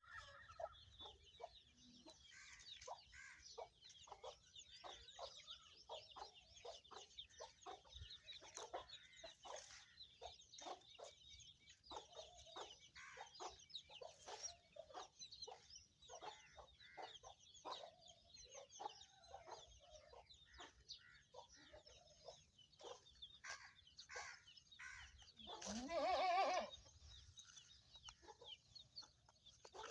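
Chickens clucking, a continual stream of short calls, with one louder, longer call with a wavering pitch about 26 seconds in.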